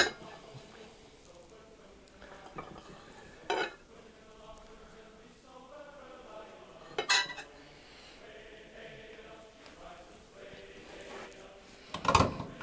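A kitchen knife knocking against a plate as a sandwich is cut in half: four sharp clinks a few seconds apart, with quieter scraping between them.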